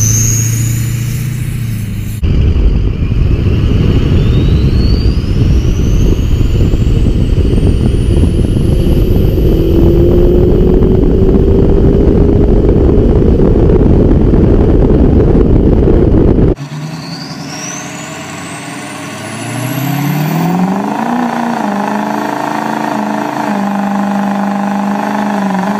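Ford 6.0 Powerstroke diesel V8 pickups in three short clips. First one pulling away. Then a loud rush of road and wind noise from beside the moving wheel, with the engine under load and whistles rising in pitch, typical of the turbo spooling. Last, an engine revving up and held at high revs during a burnout, with the tyres spinning.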